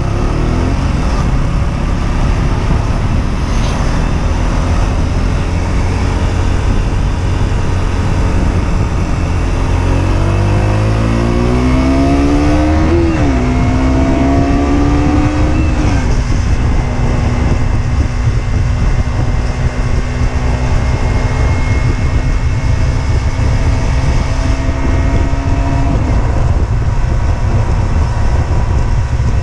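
Husqvarna Svartpilen 125's single-cylinder four-stroke engine on the move, under heavy wind rush. About ten seconds in it revs up with rising pitch and changes gear. It then holds a steady note until near the end.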